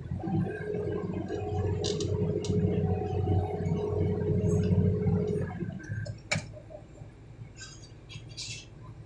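Hydraulic excavator's diesel engine and hydraulics working under load, a deep rumble with a steady whine above it. The whine drops away about five and a half seconds in, the engine eases off, and there is one sharp knock.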